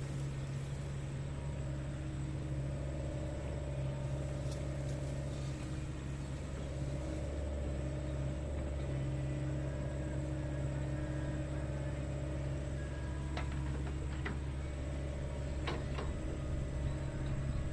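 Diesel engine of a Sunward mini excavator running steadily, with a few sharp metallic knocks about three-quarters of the way through.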